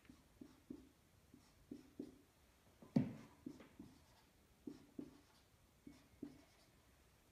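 Marker pen writing capital letters: a series of short scratchy strokes and taps of the tip on the writing surface, with one louder stroke about three seconds in.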